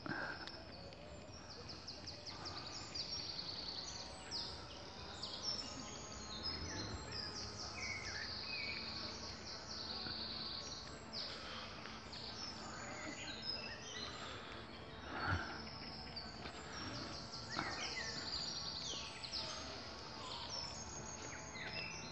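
Woodland birdsong: several birds singing at once, with rapid high trills and chirps throughout, and one short louder thump about fifteen seconds in.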